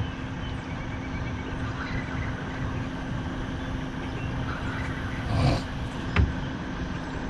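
Boat motor running steadily with a low hum. A short knock comes about six seconds in.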